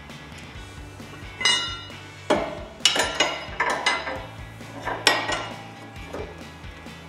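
Steel pry bar knocking and levering against a Jeep Wrangler JK's steel front sway bar and end link: about seven or eight sharp metal clanks with a ringing tail, bunched in the middle, as the link's lower end is worked onto the bar.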